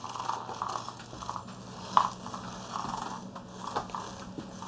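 Homemade cardboard remote-control car, driven by small electric motors, scuttling over carpet with a dry, rustling scratch. There is a sharp click about two seconds in.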